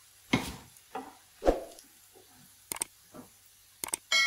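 Subscribe-button animation sound effects: a few soft swooshes, two quick double mouse clicks, then a bell ding right at the end that rings on.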